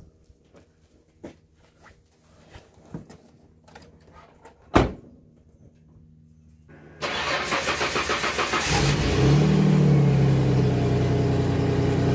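A car door shuts with a single loud thump about five seconds in. About two seconds later the pickup's engine cranks with a rapid pulsing, catches, and settles into a steady idle.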